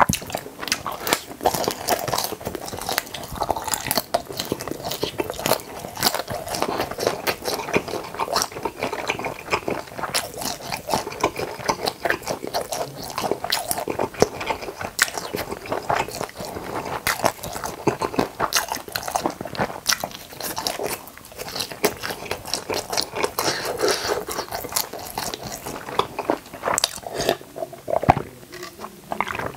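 Close-up eating sounds: a person biting and chewing, with crisp crunches and wet mouth clicks coming thick and fast.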